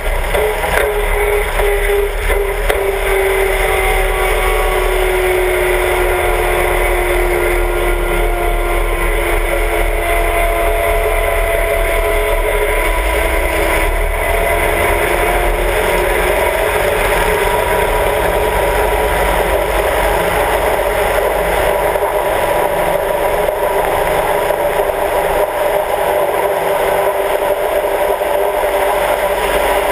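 Volkswagen-based engine and propeller of a Sonex light airplane running at low power while the plane taxis. Its pitch falls slowly over the first half, then holds steady.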